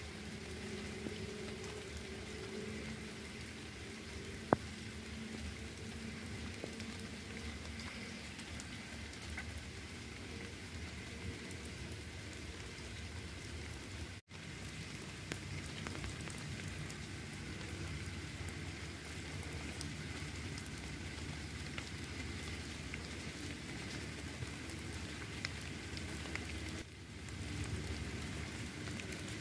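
Steady patter of light rain falling, with one sharp click about four and a half seconds in.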